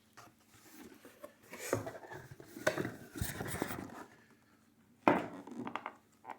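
Plastic parts and parts bags from a radio-controlled car kit being handled on a table: a stretch of clattering and rustling, then a sharp knock about five seconds in.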